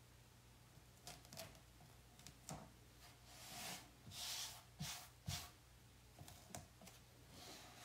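Faint handling sounds: scattered soft taps and clicks with a few brief rustling swishes, as a plastic reusable stencil transfer is lifted, shifted and pressed back onto a chalkboard to centre it.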